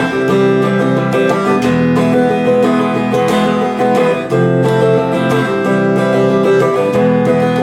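Guitar strummed in chords, playing steadily and changing chord every second or so.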